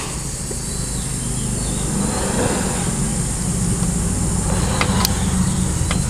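A steady low vehicle-engine rumble that grows slightly louder, with a few light metallic clicks about five seconds in as the timing gears are rocked by hand to check their mesh.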